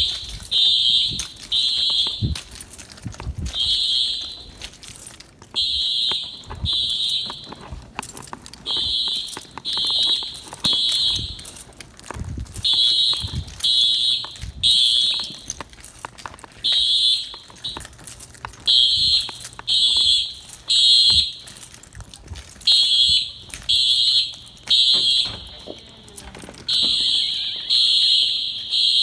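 Fire alarm horns on a Simplex system sounding the temporal-three evacuation signal. They give high-pitched buzzing blasts in groups of three, each group about four seconds apart, during a signal test.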